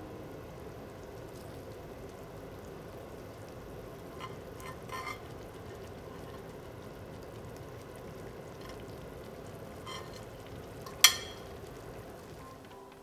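Tomato sauce sizzling and simmering steadily in a frying pan as browned chicken thighs are laid into it with metal tongs. A few light clicks of the tongs come about four to five seconds in, and a single sharp clack, the loudest sound, about eleven seconds in.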